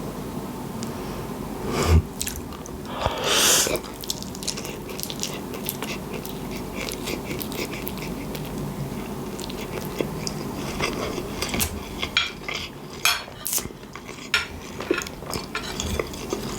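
Close-up eating of spaghetti bolognese: chewing and wet mouth sounds, with cutlery clinking and scraping on the plate. A short noisy mouth sound comes about three seconds in, and the clicks of cutlery grow busier in the last few seconds.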